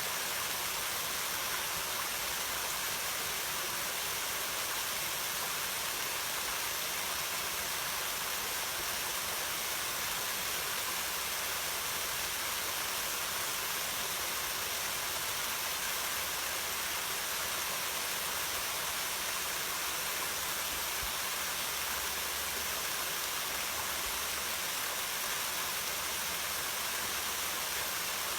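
Waterfall: water falling and rushing in a steady, even hiss that does not change.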